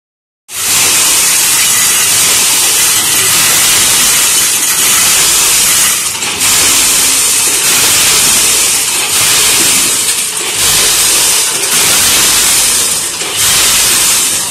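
Steel coil springs rattling in a loud, hissing jingle as they are vibrated across the stainless pans and chutes of a 14-head multihead weigher. The noise starts about half a second in and dips briefly several times in the second half.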